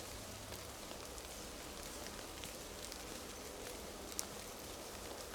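Faint outdoor ambience: a steady soft hiss with scattered small ticks and drips, one a little louder about four seconds in.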